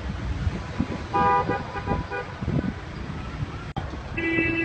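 Vehicle horns sound twice, each toot held about a second, the first about a second in and the second near the end, over a steady low rumble of wind and traffic.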